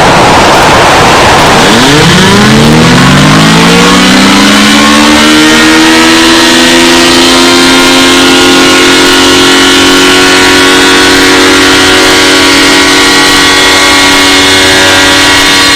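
Loud alarm siren tone that winds up in pitch from about two seconds in, then holds a steady, multi-note tone over heavy hiss.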